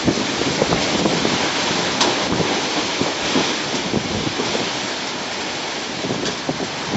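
Heavy rain and wind in a storm: a loud, steady rush with wind buffeting the microphone.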